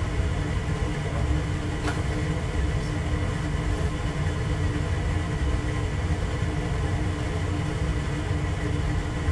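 Steady low rumble with a steady hum, which the owner takes to be the hot water heater running. A single light click about two seconds in.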